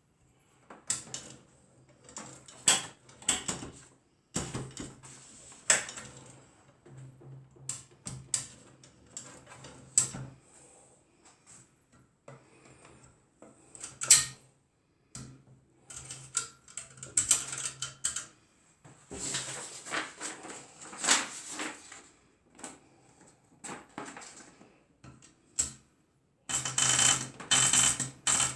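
Adler Gabriele 10 manual typewriter being worked by hand: irregular sharp clicks and strikes of the keys and mechanism, with denser runs of clatter about twenty seconds in and near the end.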